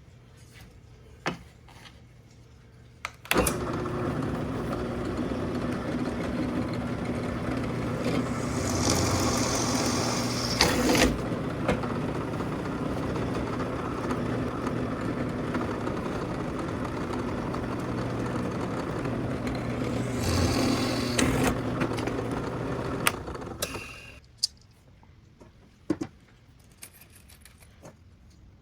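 A power tool runs for about twenty seconds, starting suddenly a few seconds in and stopping near the end, with a steady hum and two stretches of harsher, hissier sound as it bites into the work. A few sharp knocks come before and after it.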